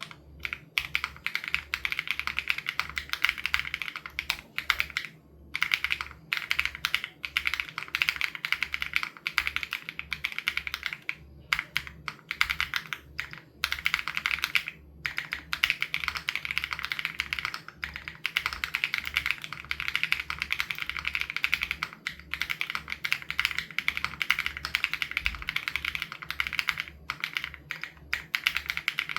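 Continuous typing on an SPM AL87B mechanical keyboard with BSUN Raw switches: a rapid, steady stream of keystroke clacks, with a few brief pauses between bursts.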